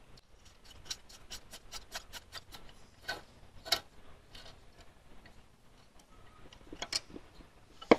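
Light metallic ticking as a helicoil thread insert is wound into a tapped bolt hole with its insertion tool: a quick run of small clicks, about four a second, with two louder clicks about three and a half seconds in and a few more near the end.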